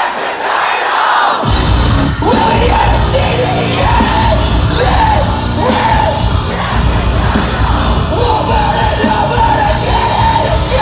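Metalcore band playing live and loud, heard from within the crowd: the bottom end drops out for about the first second and a half, then the full band of distorted guitars, bass and drums slams back in. Fans yell over the music.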